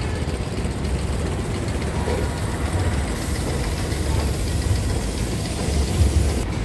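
Steady low rumble of outdoor background noise with no distinct events, swelling briefly about six seconds in.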